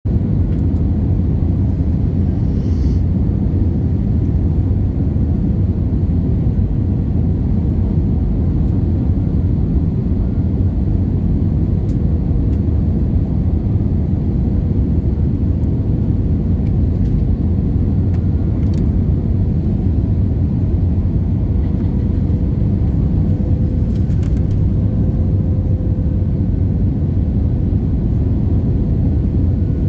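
Steady cabin noise inside an Airbus A320-232 on approach with flaps extended: a loud, even rumble of airflow and engines with a faint steady hum. Its engines are IAE V2500 turbofans.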